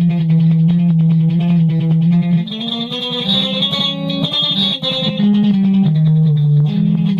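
Electric guitar improvising solo: quick plucked notes over a held low note. About two and a half seconds in, the low note shifts and the line moves between several pitches.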